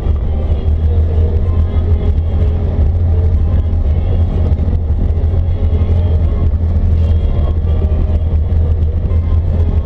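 ATV engine running steadily under way, a deep constant drone with no revving or change in pace.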